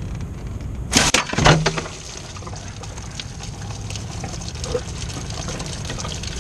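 Liquid running and trickling steadily, with a short loud clatter about a second in.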